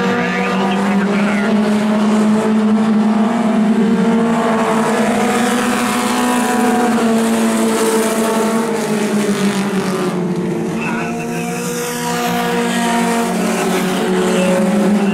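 Engines of a field of four-cylinder mini stock race cars running at speed around a dirt oval. The combined engine note rises and falls as the cars go through the turns and pass by.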